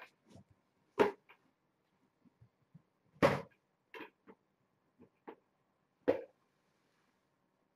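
Short, sharp knocks: three loud ones, about a second in, just past three seconds and near six seconds, with a few fainter taps between them.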